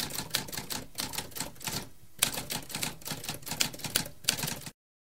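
Typewriter keys clacking in a rapid run of strikes, with a brief pause about two seconds in. The run stops suddenly near the end.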